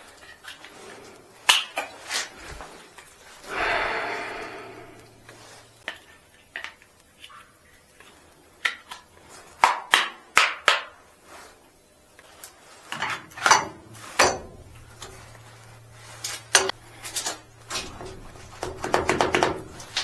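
Scattered metallic clinks, taps and knocks of hand tools and metal parts while an elevator guide shoe is refitted with a new liner, with a brief scrape about four seconds in and a quick run of clicks near the end.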